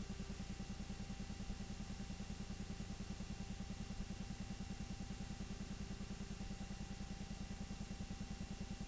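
8mm film projector running: a steady, rapid, even mechanical clatter with a faint whine, the sound of the film being projected while it was transferred to tape.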